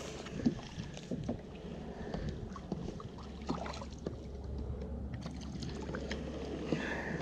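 Lake water lapping and slapping against a plastic fishing kayak's hull, with scattered small knocks and a bass splashing at the surface beside the kayak as it is reeled in.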